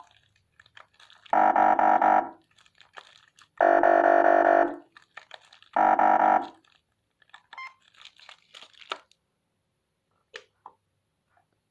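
Whelen HHS 200 W electronic siren module sounding a steady, horn-like tone in three short blasts of about a second each, followed by a few faint clicks.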